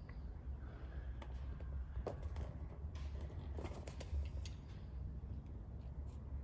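Utility knife cutting into the outer jacket of an electrical cord: scattered small clicks and scrapes, over a steady low hum.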